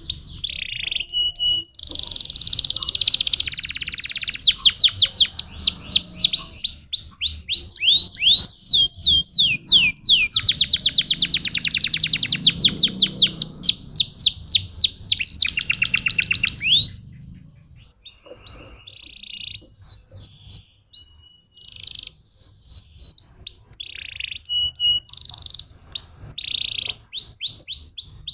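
Domestic canary singing: long, rapid trills of quickly repeated falling notes, loud and continuous through the first half, then shorter, quieter phrases with gaps after about 17 seconds.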